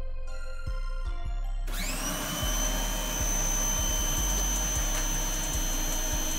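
Background music, then about a second and a half in the CAT 1800 PSI electric pressure washer starts up. Its motor's whine rises and then holds steady over the loud hiss of water spraying from the gun into a lidded bucket.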